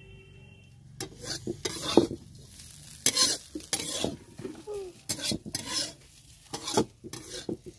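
Utensil scraping and knocking irregularly against a metal cooking pot, starting about a second in.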